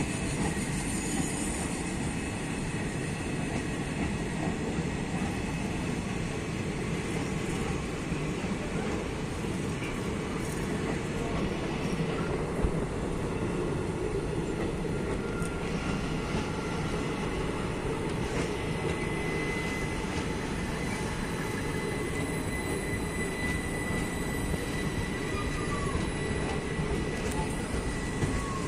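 Indian Railways passenger coaches rolling past close by: a steady rumble of wheels on the rails. A thin, steady high squeal joins it for the last third.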